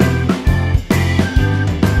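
Instrumental background music with a steady beat and sustained bass notes.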